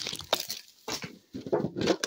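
A metal trading-card tin being handled and opened: the tin and its lid click, knock and scrape, the busiest stretch near the end, after a little wrapper crinkle at the very start.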